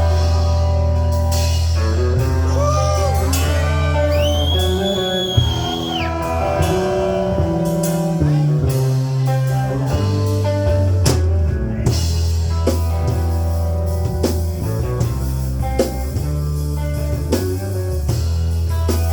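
Live rock band playing an instrumental passage: drum kit, bass and guitar, with a high held lead note about four seconds in.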